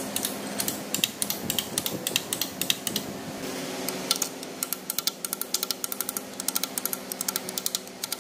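Quick, irregular light clicks and taps of metal parts being handled, over a steady hum.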